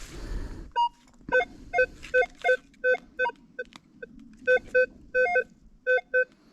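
Metal detector giving a run of short, irregular target beeps, mostly on one low tone with a few higher ones, as the coil is swept back and forth over a buried target. The target is a .303 brass cartridge casing. A brief low rustle comes at the start.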